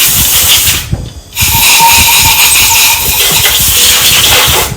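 Compressed-air blow gun blasting air into a drilled head-stud bolt hole in an aluminium engine block, clearing out the metal shavings. A loud hiss in two bursts, with a short pause about a second in.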